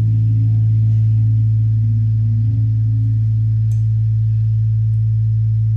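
Loud, steady low electronic drone held on one pitch, with faint higher tones over it.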